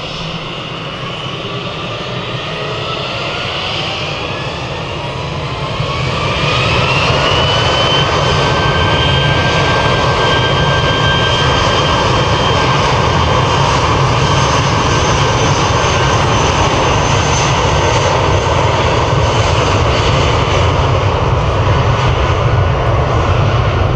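Airbus A320 jet engines spooling up to take-off thrust. A rising whine climbs for the first seven seconds or so and then holds steady while the engine noise grows louder and stays loud through the take-off roll.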